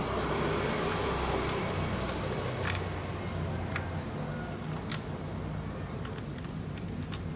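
A few light, sharp clicks and taps of laptop parts being handled and fitted, over a steady low hum.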